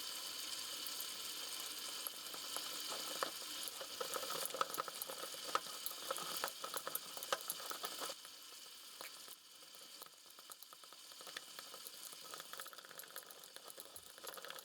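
A whisk beating a thick paste of sour cream, flour and water in a bowl, with many quick irregular clicks and scrapes. It gets quieter about eight seconds in.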